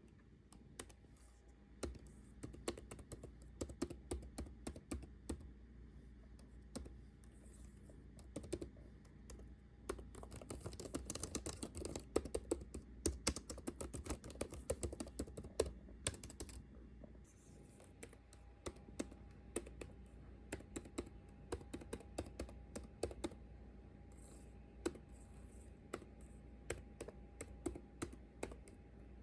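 Typing on a computer keyboard: quick, irregular key clicks, busiest in a fast flurry in the middle, over a faint steady hum.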